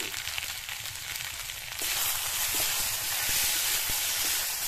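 Pieces of giant taro (mankochu) sizzling in hot oil in a steel wok as a metal spatula stirs them, with faint scrapes and knocks of the spatula on the pan. The sizzle grows louder about two seconds in.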